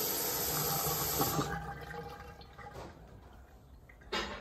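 Rushing water in a bathroom, steady at first and then dying away over about two seconds. A brief knock sounds near the end.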